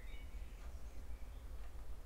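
Steady low rumble with a few faint, short high chirps, like birds calling.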